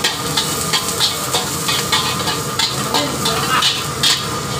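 Long-handled metal wok spatula scraping and knocking against a steel wok, about three strokes a second, as small chopped pieces sizzle in the oil. A steady low hum runs underneath.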